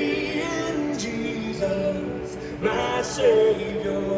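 Recorded gospel worship song playing, with voices singing over held musical notes.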